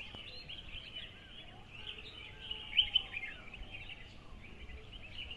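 A chorus of small birds chirping and twittering together: many short, high calls overlapping continuously, with a slightly louder burst of calls near the middle.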